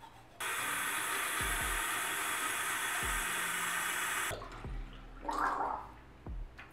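Bathroom tap running into the sink for about four seconds, turned on and off abruptly while rinsing after toothbrushing. Background music with a steady beat plays underneath.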